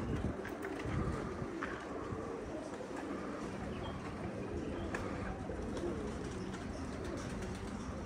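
Many domestic pigeons cooing together, steady throughout, with a few faint clicks.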